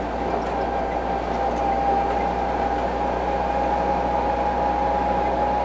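1943 Willys MB jeep under way on the road, its four-cylinder flathead engine running steadily, with a steady high whine over the driving noise.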